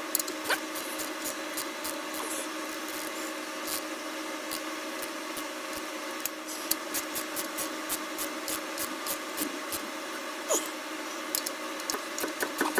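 Scattered light clicks and taps of hand tools and metal parts being worked, over a steady low hum.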